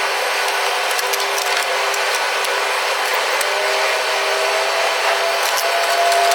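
Steady whooshing machine noise at a constant level, with a faint tone that rises a little about three seconds in and then holds, and scattered small clicks.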